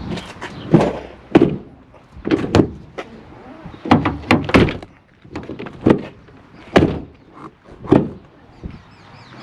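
A 2009 Chevrolet Silverado's door and latch: a series of separate clunks and clicks as the door is shut and the newly reconnected inside handle is pulled again and again to work the latch.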